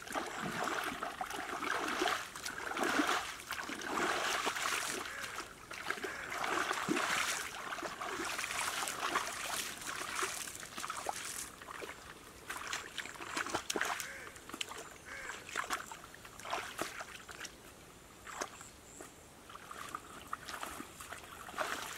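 Shallow muddy water splashing and sloshing irregularly as people wade through it and grope about with their hands to catch fish.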